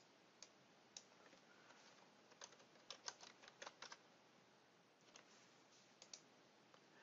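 Faint clicking of a computer keyboard as a word is typed: scattered key presses in short, irregular clusters.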